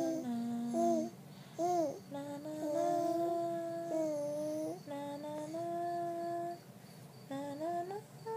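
Baby cooing: long drawn-out vowel sounds, some held level and some swooping up and down, with short breaks between.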